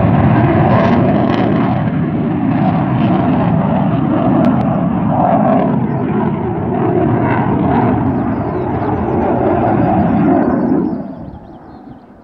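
MiG-29 fighter's twin RD-33 turbofan engines, a loud, rumbling jet noise heard through a phone microphone, swelling and ebbing slightly, then dropping away sharply about eleven seconds in as the jet moves off.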